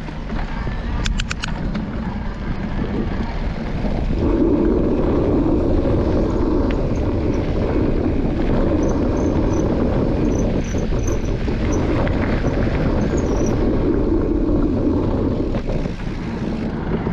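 Mountain bike rolling along a gravel trail: steady tyre noise and rush of air on the bike-mounted camera, growing louder about four seconds in. A quick run of clicks about a second in.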